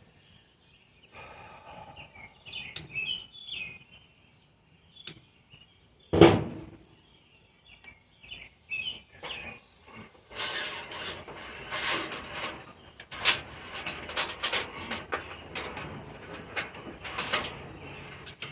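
Hand work on an old truck's wiring: a single loud clunk about six seconds in, then several seconds of rapid clicking, rattling and scraping as parts are worked loose. Small birds chirp in the background early on.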